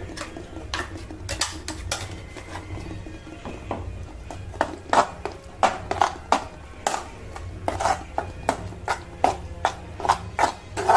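A metal spoon scraping and clinking against a metal kadai as thick beetroot and coconut pastes are stirred together. The clinks are sparse at first and come about one or two a second from about halfway through.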